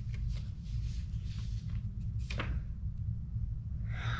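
Paper pages of a handmade folded book rustling and rubbing as they are handled and flipped, with one sharper rustle about two seconds in, over a steady low hum.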